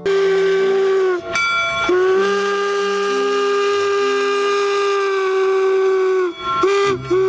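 Steam locomotive whistle blowing over a steam hiss: one short blast, a long steady blast of about four seconds, then two quick toots and another blast near the end.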